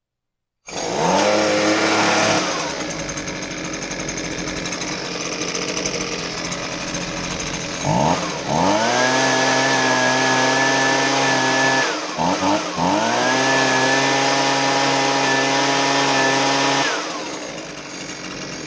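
Husqvarna 125B handheld leaf blower's small two-stroke engine running after its impeller rattle repair. It settles to idle a couple of seconds in, is throttled up to a steady high-pitched full-throttle whine about eight seconds in, blips down briefly near twelve seconds, runs at full throttle again, and drops back to idle near the end.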